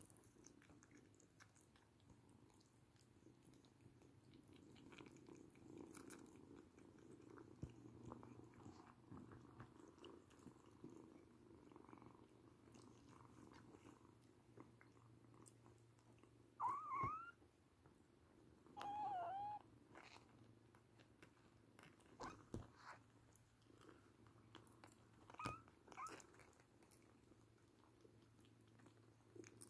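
Oriental Shorthair kittens purring faintly, with two short high kitten mews a little past halfway and a few softer ones near the end, among small clicks and taps.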